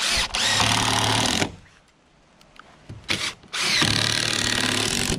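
Cordless drill driving a long screw into a wooden roof rafter: two runs of about a second and a half each, with a couple of short trigger blips between them and the motor winding up at the start of each run.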